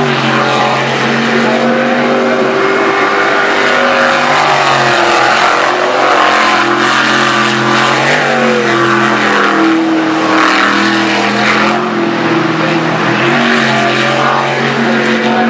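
V8 jet sprint boat engine running hard, its pitch rising and falling again and again as the boat is driven through the course.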